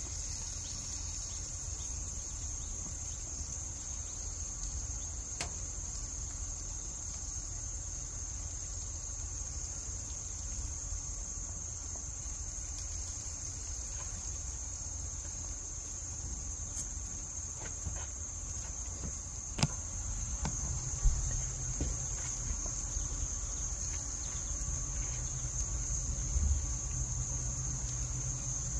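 Steady high-pitched insect chirring over a low rumble. A couple of sharp clicks come about two-thirds through, and a low hum comes in just after.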